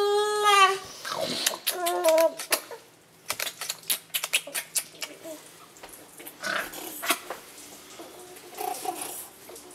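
A baby's drawn-out vocal squeal at the start and another short one about two seconds in, among a scatter of sharp clicks from the Olympus E-PL1's shutter firing a series of shots.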